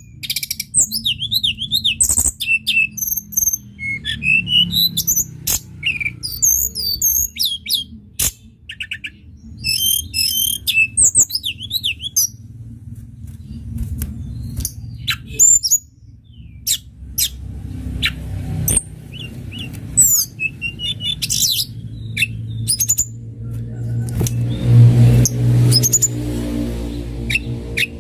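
Tledekan gunung songbird singing a fast, varied song of high chirps and zigzag trilled phrases, with short pauses between them. A low rumble runs underneath and swells near the end.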